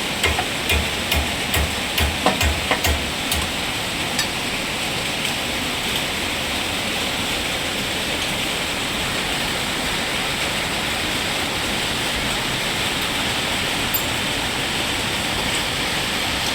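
A quick run of about eight hammer blows, roughly three a second, then one more a moment later, over a steady hiss.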